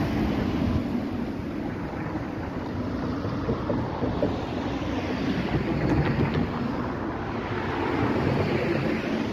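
Road traffic: cars driving past with tyre and engine noise, one passing close near the end, with wind on the microphone.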